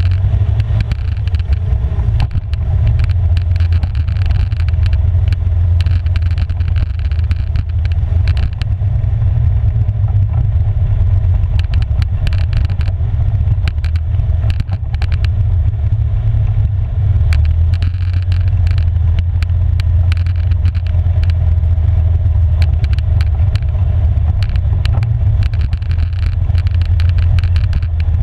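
Polaris 570 ATV's single-cylinder four-stroke engine running steadily under way, a deep continuous rumble. Many short clicks and knocks come from the tyres and chassis on loose gravel.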